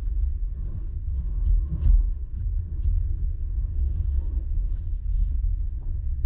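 Low, steady rumble of a car driving slowly, heard from inside the cabin, with a few faint ticks and clicks.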